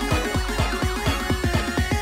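Background electronic music: a quick run of short, repeated notes over a steady beat.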